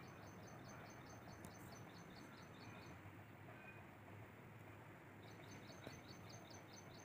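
Near silence with a small bird singing: a quick series of short, high, repeated notes, about four a second, heard twice, over a faint low hum.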